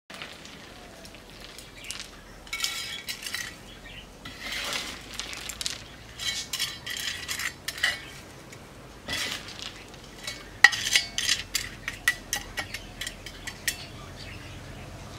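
Coarse granular bonsai soil, small red and dark gravel-like grains, rattling and crunching as it is tipped into a shallow cement pot and spread by hand. It comes in several bursts of gritty clicking, with one sharp clink about ten and a half seconds in.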